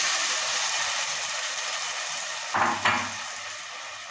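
Tomato juice hitting the hot ghee, onion and garlic in an aluminium pot, sizzling loudly at first and dying down as the pour ends. A couple of short knocks come about two and a half seconds in.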